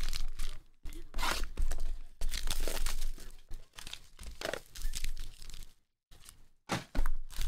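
Plastic cellophane wrapping crinkling and tearing as trading-card boxes and packs are unwrapped by hand, in irregular bursts with a brief pause about six seconds in.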